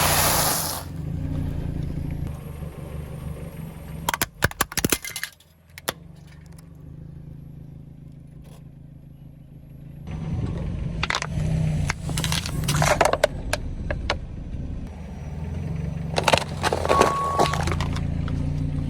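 A car's engine running low and steady while its tyres roll over and crush crunchy objects, with bursts of sharp cracking and crackling: one cluster about four seconds in, then longer crunching runs in the second half.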